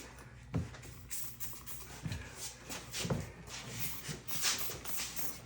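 Spray bottle of soapy water squirted several times onto the tire bead as lubricant, in short hissing bursts, with scattered knocks and rubbing from handling the tire and wheel.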